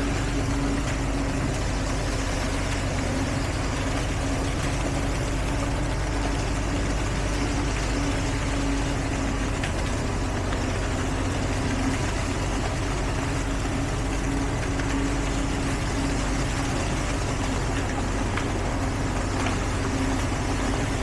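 Heavy construction-vehicle engine running steadily at a constant speed, with a steady low hum.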